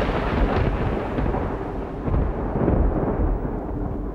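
Thunder rumbling and slowly fading, a deep noisy roll whose treble dies away over the few seconds.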